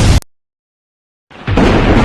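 A loud, dense, bass-heavy noise cuts off abruptly. About a second of dead silence follows, then the noise comes back in.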